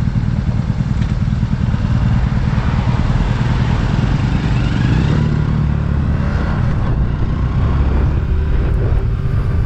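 Honda Super Cub motorcycle running steadily on the road, with wind rushing over the microphone.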